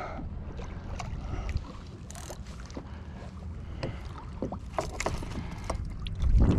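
Small barracuda splashing at the surface beside a plastic kayak as it is landed, with scattered clicks and knocks of gear against the hull, a heavier thump near the end, and wind rumble on the microphone.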